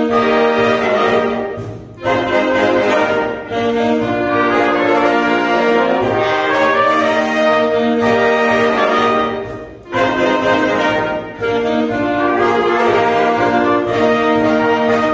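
Small church wind band of saxophones and brass playing a slow hymn in full sustained chords, with brief breaths between phrases about two seconds in and again about ten seconds in.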